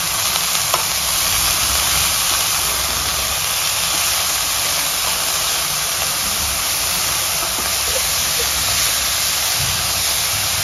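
Washed, chopped fenugreek leaves sizzling in hot oil and spices in a kadai as they are stirred, a steady hiss.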